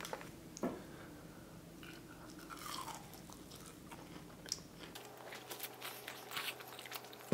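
Faint, close-up chewing and crunching as a person eats fast food: fried bites dipped in sauce and a burger, with scattered small clicks.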